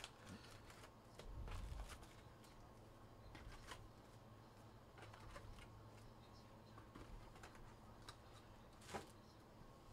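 Near silence, with faint, scattered clicks and soft rustles of trading cards and packs being handled. One sharper tick comes near the end.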